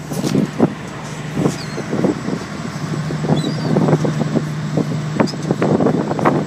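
Ferry engine running with a steady low hum, heard on the open deck, with wind buffeting the microphone in irregular gusts throughout.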